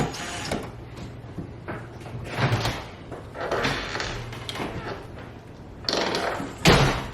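Several short bursts of scraping and knocking over a steady low hum, with one loud thump near the end.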